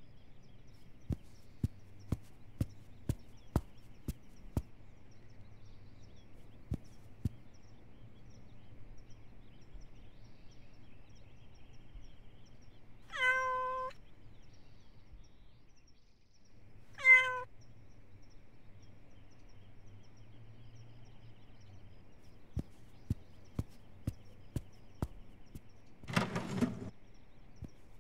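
Cartoon cat meowing twice: a half-second mew about 13 seconds in and a shorter one about four seconds later. Light even clicks, about two a second, run for a few seconds near the start and again near the end.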